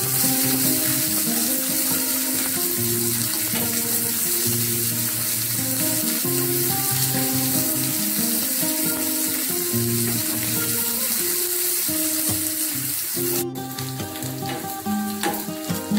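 Sliced shallots and dried red chillies sizzling in hot oil in a small aluminium pan as they are stirred with a spatula, a steady frying hiss. Background music with long held notes plays over it.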